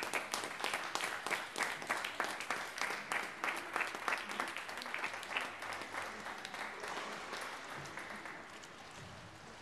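Audience applauding, the clapping gradually thinning out and growing quieter.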